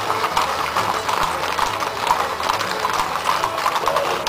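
Hooves of several ridden horses clip-clopping on an asphalt street, with many overlapping steps in a busy, uneven patter.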